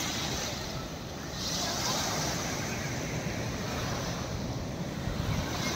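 Small waves breaking and washing up a sandy beach, with wind rumbling on the microphone. The hiss of a wave's wash swells about a second and a half in.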